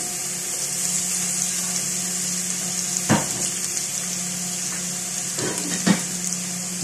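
Minced garlic frying in hot cooking oil in a pot, a steady sizzle, with two short knocks about three and six seconds in.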